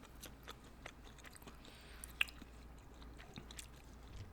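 Close-miked chewing of a soft, crumbly Indian sweet: small wet mouth clicks and smacks, with one sharper click about two seconds in.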